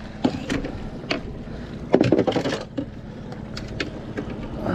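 Landing net holding a redfish being set down and handled on a fiberglass boat deck: a few knocks and rattles, the loudest cluster about two seconds in, over a steady low rumble.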